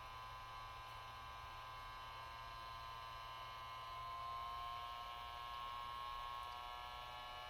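Small 30 mm cooling fan in a Traxxas EZ Peak RC battery charger running: a faint, steady electric whine of several tones over a low hum, one tone drifting slightly in pitch partway through.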